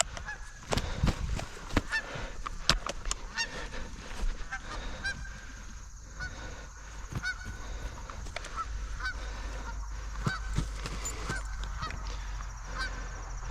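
Geese honking, a steady run of short calls one after another, most likely Canada geese. A few sharp knocks sound in the first few seconds.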